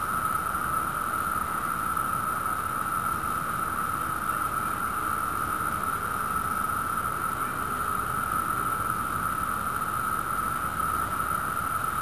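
Chorus of Brood II periodical cicadas (Magicicada): a steady, unbroken ringing drone from masses of males singing their mating song.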